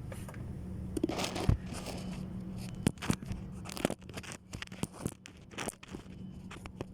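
Irregular clicks, knocks and scraping from hand tools working on the clutch pressure plate bolts of a Toyota Hilux, over a steady low hum.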